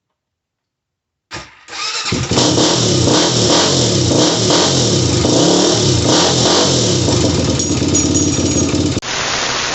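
An engine revving up and down over and over, starting suddenly after a moment of silence and cut off about nine seconds in, giving way to a steady hiss.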